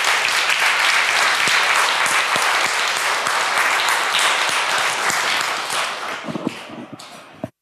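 Audience applauding at the close of a talk: a dense patter of many hands clapping that thins out after about six seconds and then cuts off abruptly.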